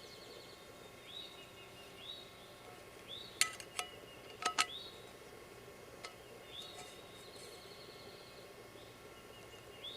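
Wild birds calling in short rising chirps, one every second or so, over a faint outdoor background. A handful of sharp clicks comes in a quick cluster about three and a half to four and a half seconds in, with one more a little after six seconds.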